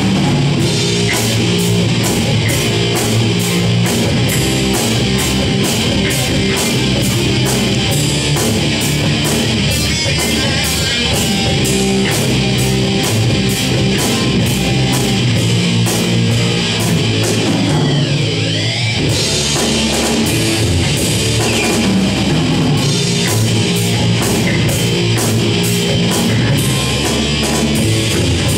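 Live instrumental rock from a band of electric guitars and a drum kit, the cymbals struck about three times a second. About two-thirds of the way through the cymbals drop out for a moment under a falling pitch glide, then the beat resumes.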